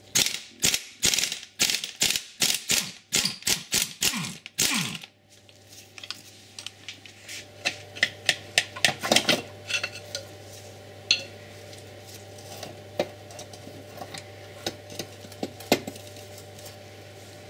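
Hand ratchet clicking quickly in short runs as a starter-motor bolt is undone on an Audi RS6's 4.2 V8. Scattered metallic clinks and knocks follow as the starter motor is worked loose from the engine.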